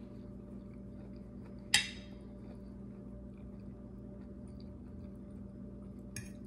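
A single sharp clink of tableware, a utensil or glass striking a dish, about two seconds in, with a brief ring, followed near the end by a fainter click. Both sit over a steady low hum.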